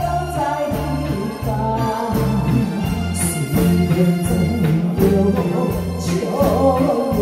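A woman singing a ballad into a microphone, backed by a live band with drums, electric guitar, bass and keyboard; a steady bass line pulses about twice a second under the melody.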